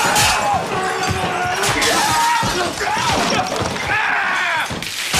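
Loud smashing and crashing, with things breaking and thudding, in a violent struggle. Voices cry out over it, against a bed of music.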